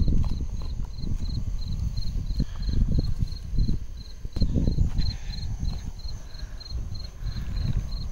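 An insect chirping steadily at one high pitch, about two to three chirps a second, over a louder, irregular low rumble.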